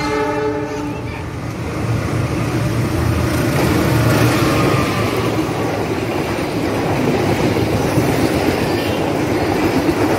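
A diesel locomotive's horn sounds and cuts off about a second in, then a CC206 diesel-electric locomotive and its passenger coaches pass close by at speed. The rumble of engine and wheels on rail swells to its loudest around four seconds in and stays loud and steady as the coaches run past.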